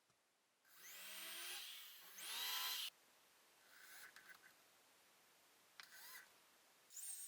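Power drill running in two short bursts, its motor whining with changing pitch, followed by a few fainter short tool sounds.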